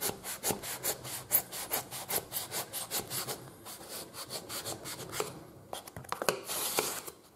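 Long knife sawing back and forth through layered foam, cutting a tapered wedge off a saddle knee roll: quick rasping strokes at about four a second, slowing and softening after about three seconds.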